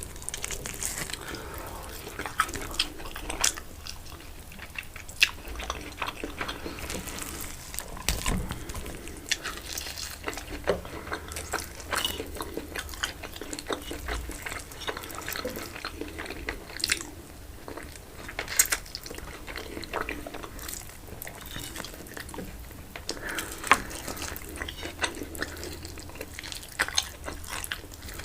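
Close-miked eating sounds: a person chewing and biting food, with many sharp mouth clicks coming irregularly.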